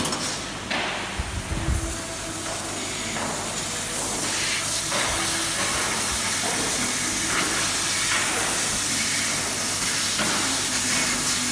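A 500 W fiber laser cutting machine cutting sheet metal: steady hiss of the assist-gas jet at the cutting head, with a faint hum that comes and goes. A brief low thump comes about a second and a half in.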